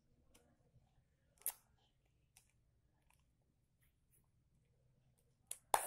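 Scattered soft clicks and taps of paper cutouts being handled and pressed onto a busy book page, with a louder pair of sharp taps near the end.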